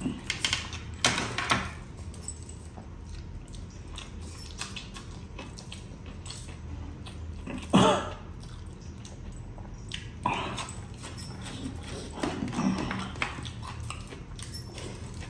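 A man eating rice and chicken curry by hand: chewing and mouth noises in short bursts, the loudest about eight seconds in.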